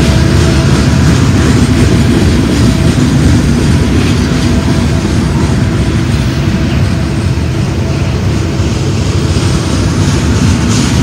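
A freight train's gondola cars rolling past close by, steel wheels running over the rails, loud and steady.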